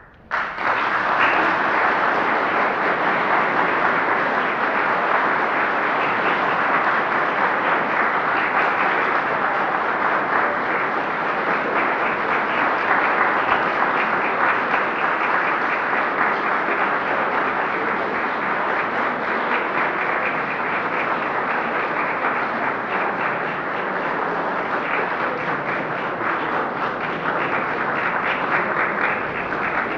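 A large audience applauding: many hands clapping together, starting suddenly and going on steadily without a break.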